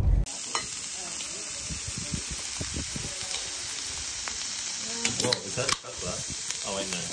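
Strips of beef sizzling on a hot Korean barbecue grill pan, a steady hiss, with a few voices talking quietly near the end.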